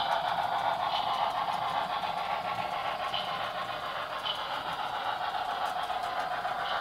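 HO scale model freight cars rolling along the track: a steady whirring rumble with light clicks about once a second, easing slightly toward the end.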